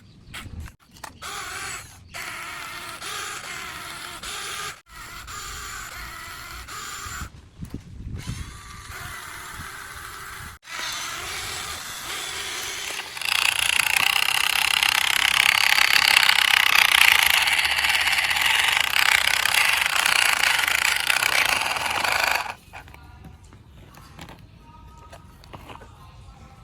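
Small electric motor and plastic gears of a toy construction vehicle whirring. The sound is broken by several short cuts, and it grows much louder and harsher for several seconds past the middle before dropping back to a quieter whir.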